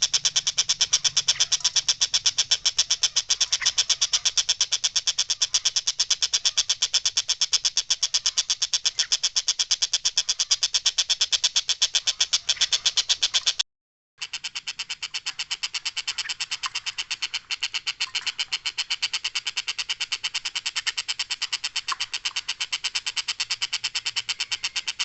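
Tengkek buto kingfisher calling 'ngekek': a long, rapid, evenly paced chatter of harsh high notes. It is cut off for a moment about 14 seconds in, then carries on.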